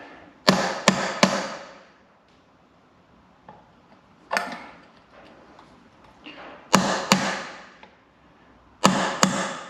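Hammer blows on metal, each ringing briefly: about eight strikes in groups of three, one, two and two. They are knocking the Bristol Hercules reduction gear loose from its casing so that it drops free.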